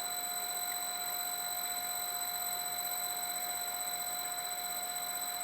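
Lathe turning slowly to lap a sticking diesel injector nozzle pintle, giving a steady high whine made of several pitches over a light hiss.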